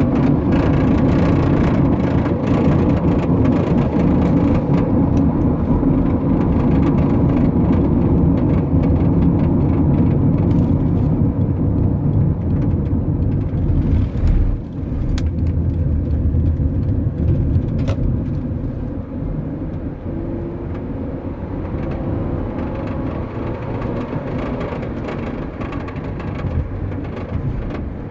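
2006 Honda Odyssey minivan driving at highway speed: steady road and engine noise with occasional short clunks. The clunking is an unexplained fault that appears at highway speed.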